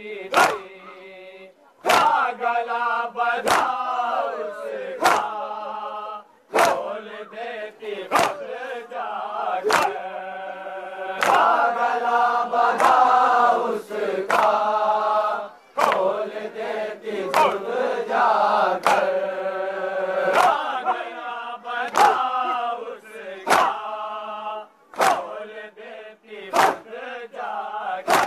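A crowd of men chanting a Shia noha (mourning lament) in unison. Sharp strokes of matam, rhythmic chest-beating with the palms, keep time with it at about one every second and a half.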